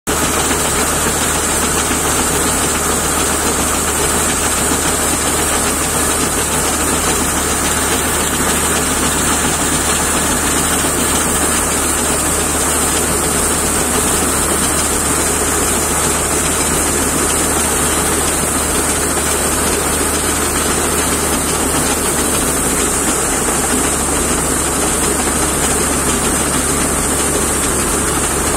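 Heavy diesel engine of harvest machinery running steadily at a constant speed, with a steady high-pitched hiss or whine above it.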